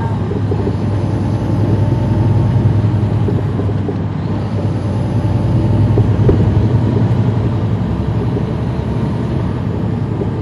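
Caterpillar C13 ACERT diesel engine of a NABI 40-SFW transit bus running under way, heard from the rear seats inside the cabin as a steady low drone that swells a little about two seconds in and again around six seconds.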